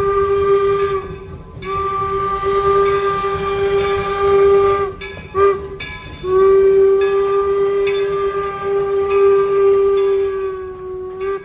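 Toy railway engine's electronic train-whistle sound effect: long, steady single-pitched blasts with short breaks, including one brief toot between two long ones.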